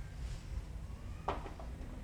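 Handling noise from work on a dismantled washing machine tub: one short knock about a second in, over a low steady hum.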